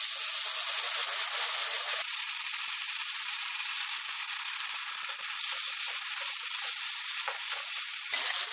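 Onion paste sizzling and frying steadily in hot mustard oil mixed with ghee in a karahi.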